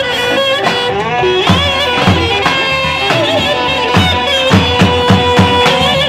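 Live clarinet playing a fast, ornamented Roman havası dance tune, its melody bending and trilling, over a steady drum beat.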